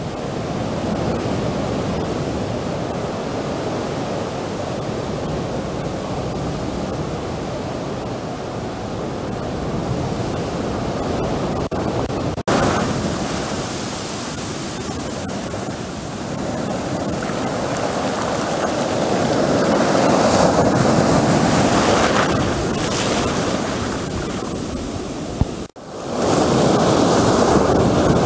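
Sea surf breaking and washing up the shore: a steady rushing that changes character abruptly about twelve seconds in and again near the end.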